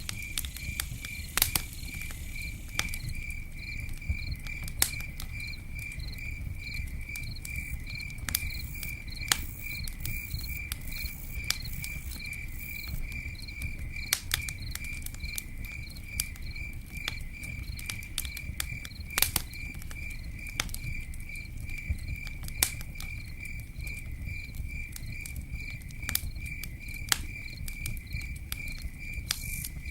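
Campfire crackling, with sharp pops scattered throughout and a low rumble, over a cricket chirping in a steady, even rhythm.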